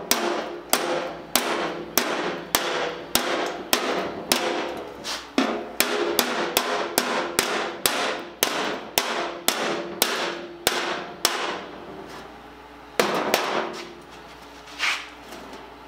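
Hammer tapping the edge of a sheet-steel bin made from pitted fuel-oil-tank steel, about two blows a second, each with a short metallic ring. The blows stop about eleven seconds in; a short burst of quicker knocks follows a couple of seconds later, then one last tap near the end.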